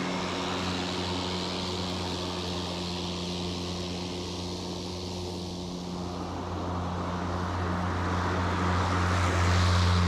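EGO cordless electric self-propelled lawn mower running with its bag on, a steady hum of motor and blade. It is making a second pass at a raised cutting height to suck up clumped wet clippings. The hum fades a little as the mower moves off and grows louder as it comes back close near the end.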